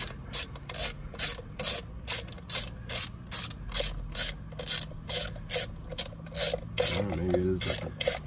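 Hand socket ratchet wrench working a bolt, its pawl clicking in a steady rhythm of about three strokes a second.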